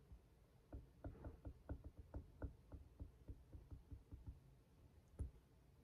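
Faint quick taps of a stylus writing on an iPad screen, about four or five a second for a few seconds, then one sharper single tap near the end.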